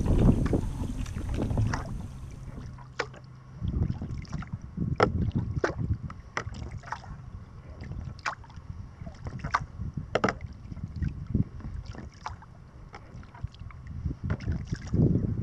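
Kayak paddle blades dipping and splashing about once a second, with water lapping at the hull. Wind buffets the microphone at first and cuts off about three seconds in.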